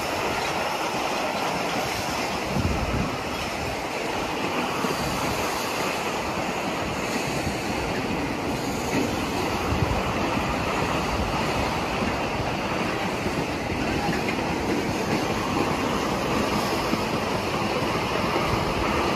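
Long rake of empty sugarcane bins rolling past on a narrow-gauge cane railway: a steady rumble of steel wheels on rail.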